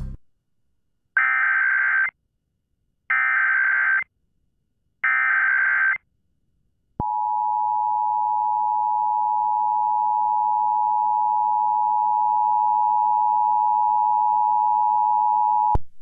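Emergency Alert System signal broadcast on AM radio, issuing an AMBER Alert: three short bursts of SAME digital header data, each about a second long and a second apart, then, about seven seconds in, the two-tone attention signal, a steady dual tone held for about nine seconds that cuts off sharply.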